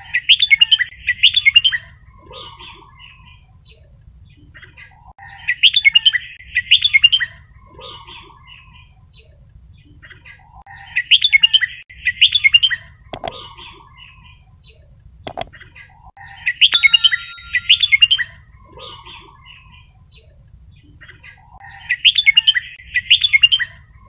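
Red-whiskered bulbul song: the same short, bright chattering phrase repeats about every five and a half seconds over a low steady hum, with a couple of sharp clicks midway.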